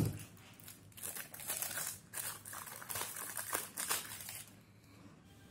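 Packaging crinkling and rustling as it is handled, a run of irregular rustles that dies away about four and a half seconds in.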